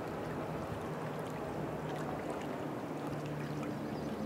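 Steady outdoor ambience: a low, even hum under a constant hiss, with a few faint high ticks.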